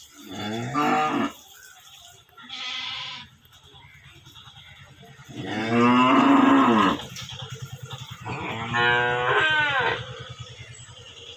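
A young calf mooing in long, drawn-out calls: three strong ones about three seconds apart, the loudest near the middle, with a fainter, breathier call after the first. A low steady hum runs underneath in the second half.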